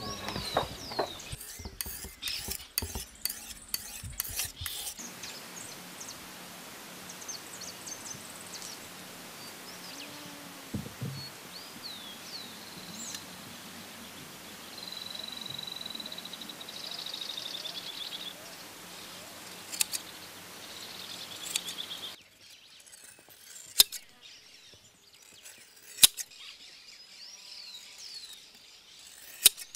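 Hand scraping strokes for the first few seconds. Then a steady outdoor background with several birds calling, including a trill in the middle. After a sudden change it grows quieter, with three sharp snips of a blade trimming a horse's mane.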